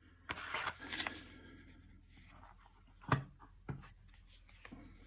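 Paper rustling from a handled packing slip, then two sharp clicks and a softer one of hard plastic PSA graded-card slabs being handled and set down.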